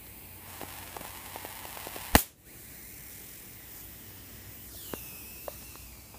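High-voltage arcing from a CRT monitor's flyback transformer lead held near the grounded metal chassis: a steady hiss with small crackling snaps, and one loud sharp crack about two seconds in. Near the end a faint high whine slides down in pitch and then holds steady.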